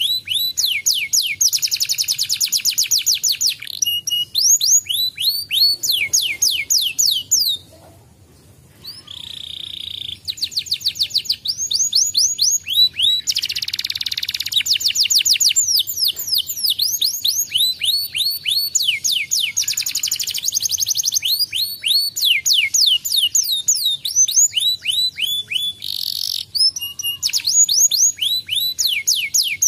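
Domestic canary singing a long song of fast trills: runs of quick, high falling notes repeated many times a second, changing from one phrase to the next, with a short pause about eight seconds in.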